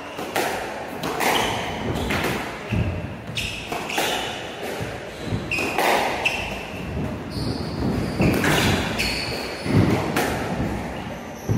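A squash rally: the ball smacking off rackets and the court walls in quick, echoing hits every half-second to a second, with short high squeaks of shoes on the wooden floor between them.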